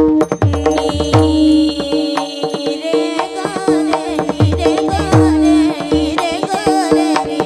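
Warkari abhang music with a steady drone and a sung melody. Hand-drum bass strokes slide down in pitch, and small cymbals click in rhythm.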